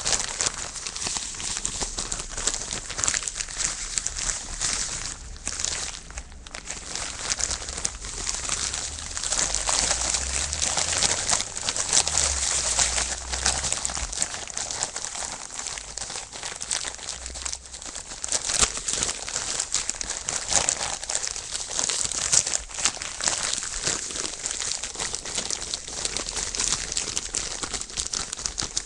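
A plastic zip-top bag crinkling and rustling continuously while salted pork is mixed and worked around inside it.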